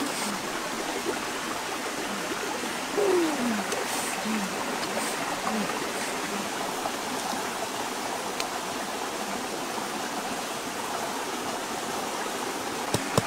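Steady rushing noise like flowing stream water, with a few short, low hoot-like sounds and one longer falling one about three seconds in.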